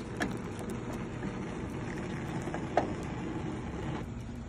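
Lit propane grill burners with a steady rushing of gas flames. A few short sharp clicks come through it, the loudest about three seconds in.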